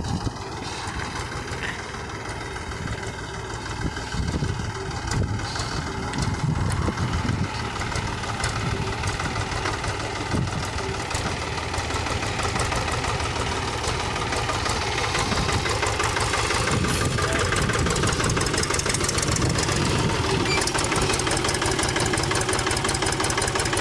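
Tractor diesel engine running steadily with a rhythmic knock, growing gradually louder.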